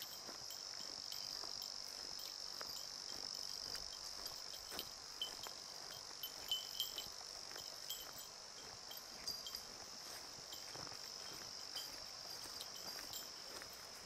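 Steady high-pitched chorus of insects singing without a break, with a few soft clicks scattered through it.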